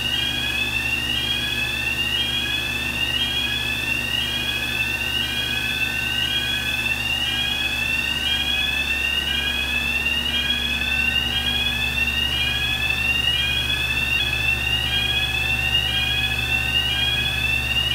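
Electronic warning alarm on an industrial steam autoclave, a rising whoop repeated a little over once a second, signalling that the automatic door is in motion as it swings open. A steady low hum runs underneath.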